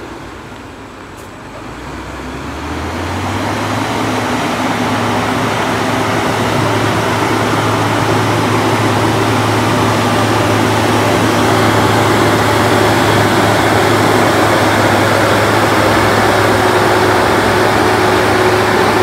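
Diesel engine of a UD Trucks Quester tractor-trailer pulling up a steep dirt grade at a steady engine speed. It grows louder over the first few seconds as the truck approaches, then holds loud.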